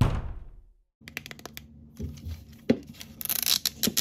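A sudden loud sound that fades away over the first second, then fingernails clicking and scratching on the plastic wrapper of an L.O.L. Surprise Mini Sweets capsule, crinkling it, with the wrapper starting to tear near the end as the pull tab is peeled.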